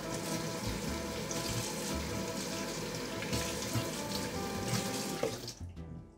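Kitchen tap running into a stainless-steel sink with hands being rinsed under the stream, an even splashing that stops about five and a half seconds in.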